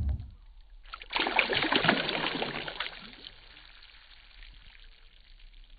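Water splashing and gurgling, starting sharply about a second in and dying away over the next two seconds into a faint steady hiss.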